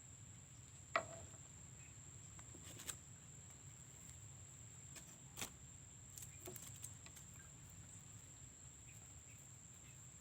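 Faint, steady high-pitched insect drone, with a few scattered light clicks.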